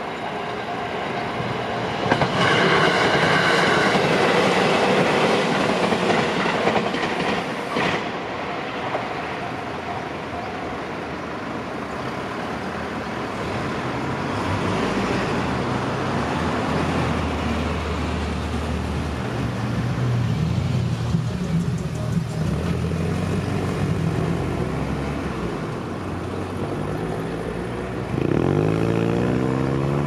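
An electric train on the JR Gotemba Line passing over a level crossing, loudest from about two to eight seconds in and ending sharply. Road vehicles then drive across the crossing, and one pulls away near the end.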